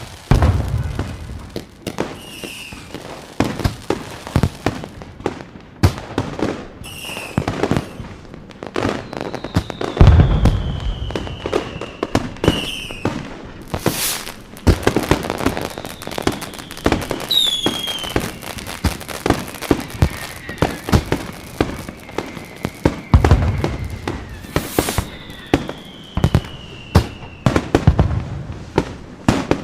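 Fireworks going off: dense crackling and popping bangs, with a few deep booms, the loudest about ten seconds in and again about 23 seconds in, and several whistling shells whose whistles slide slowly down in pitch.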